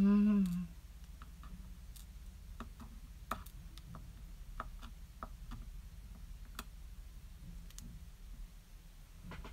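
Scattered small, irregular clicks and taps of makeup items being handled close to the microphone, over a steady low hum. A short hummed vocal sound comes at the very start.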